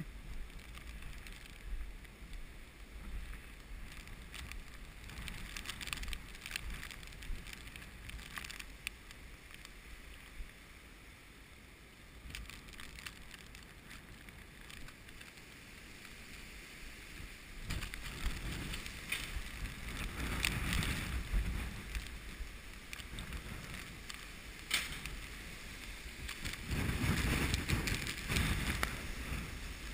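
Strong hurricane wind gusts buffeting the camera microphone: a steady low rumble that swells into louder gusts about two-thirds of the way through and again near the end.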